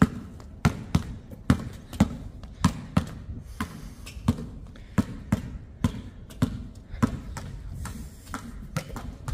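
A basketball dribbled on a hard outdoor court, bouncing about twice a second in a steady rhythm. The bounces grow fainter in the second half as the dribbler moves away.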